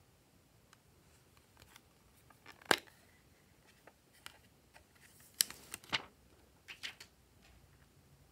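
Plastic eyeshadow palette clicking and tapping as it is opened and handled, with one loud click a little under three seconds in and a quick cluster of sharper clicks between about five and seven seconds.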